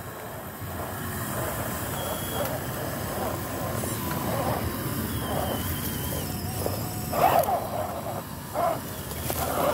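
Electric motor and drivetrain of a scale RC crawler with a Jeep body working under load as it climbs a steep dirt bank, tyres scrabbling on loose soil. There are louder short bursts about seven seconds in and again a second or so later.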